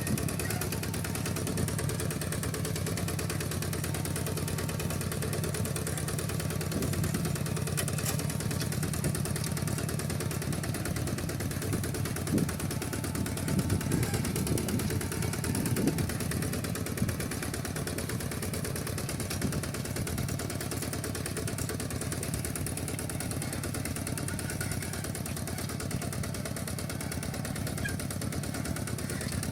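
Two-wheel walking tractor engine running steadily, with a stretch of louder clattering knocks about halfway through.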